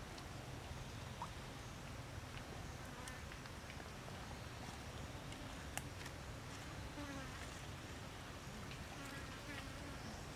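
A fly buzzing steadily close by, with a few faint clicks.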